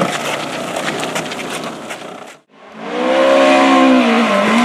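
Rally car engine running hard at high revs as the car slides off a gravel corner, its note wavering and dipping briefly near the end. Before it, about two seconds of scuffling noise with clicks and knocks, which cuts off abruptly.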